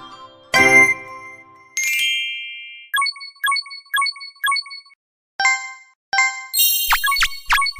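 Cartoon sound effects of synthesized bell dings and chimes. A ringing chord and a held tone are followed by a run of dings about two a second, two slower dings, and a quick flurry of bright strikes near the end.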